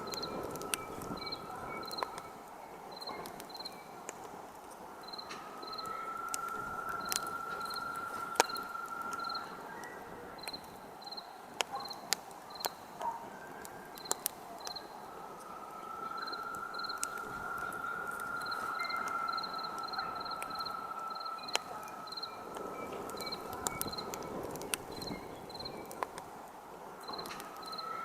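Wood campfire crackling, with irregular sharp pops and snaps, over a steady hiss. Crickets chirp in short high pips, about two a second, and a thin high whine swells and fades twice, lasting several seconds each time.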